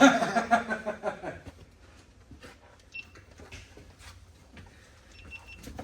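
A sharp knock, then a man's voice for about a second and a half, likely a laugh, followed by faint scattered clicks of parts being handled.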